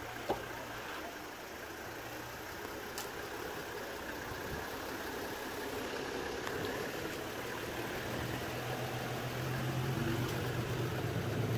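A four-wheel-drive vehicle's engine running steadily at low revs, growing louder over the last few seconds. There is a single sharp click about a third of a second in.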